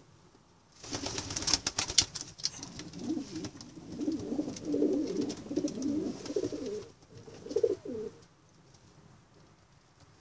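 Homing pigeons cooing in the loft, a low warbling coo that comes in repeated phrases and stops near the end. It is preceded about a second in by a brief burst of clattering.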